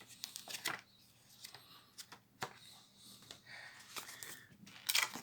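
Paper and card rustling as a theme deck's printed contents (rules booklet, folded paper playmat) are handled, with a few small sharp clicks and taps.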